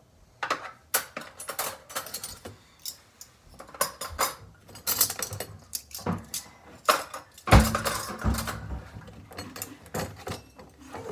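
Dishes and cutlery clinking and clattering as they are handled and set down: a string of sharp knocks, the heaviest about seven and a half seconds in.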